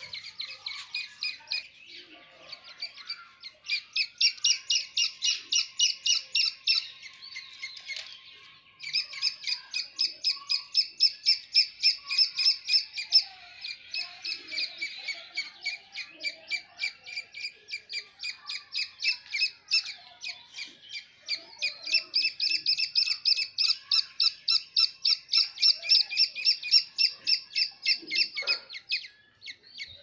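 Grey francolin chicks peeping: rapid, repeated high peeps, about four a second, with a short break about eight seconds in.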